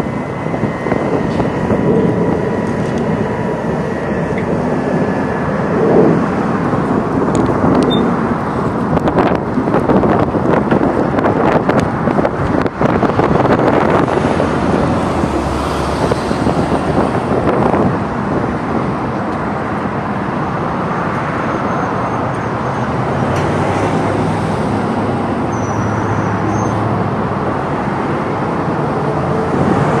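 Steady outdoor road-traffic and construction-site noise, with a few scattered knocks around eight to thirteen seconds in.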